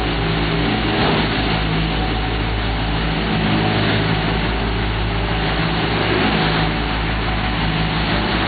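Heavy diesel paving machinery running steadily at close range: a constant low engine drone with an even rushing noise over it.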